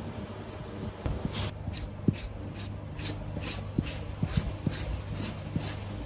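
A plastic-bladed spreader scraping white paste across leather in quick repeated strokes, about three to four a second, starting about a second and a half in, with a few light knocks before it.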